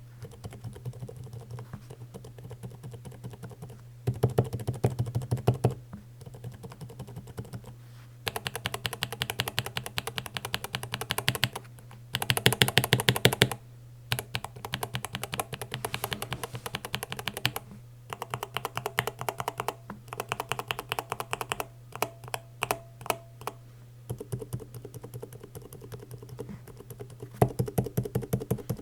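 Typing on a mechanical keyboard fitted with new Outemu switches: fast runs of keystroke clacks in separate stretches of a few seconds each, the loudness and sharpness changing from one stretch to the next as different switch types are played.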